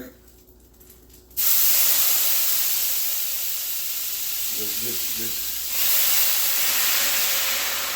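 Sherry poured into a hot skillet to deglaze it: a sudden loud hiss and sizzle of steam starting about a second and a half in, holding steady and growing louder again around six seconds in.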